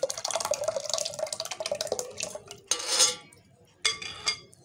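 Steel spoon stirring yogurt in a glass bowl, scraping and clicking against the glass while a stream of liquid pours in for the first couple of seconds. A sharp knock about three seconds in and a ringing clink of spoon on glass near the end.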